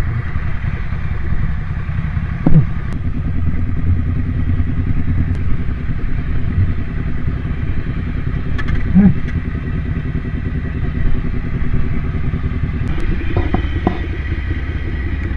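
Motorcycle engine running steadily at low speed, heard from on the bike.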